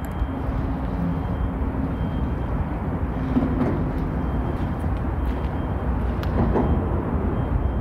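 Steady low rumble of road traffic on the highway overpass overhead, with the faint hum of an engine now and then.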